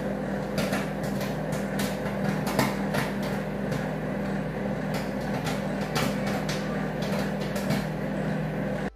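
Samsung microwave oven running with a steady hum while popcorn kernels pop inside a paper envelope: scattered sharp pops, about two a second.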